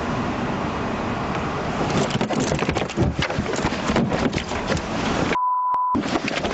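Scuffle in the back seat of a police car: a rapid run of knocks, bumps and rustling as bodies wrestle against the seat and door, over a steady noise. About five and a half seconds in, the sound cuts out briefly to a single steady beep.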